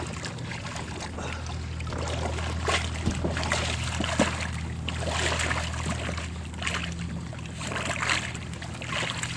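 Sea water splashing and sloshing irregularly against a kayak, over a steady low hum.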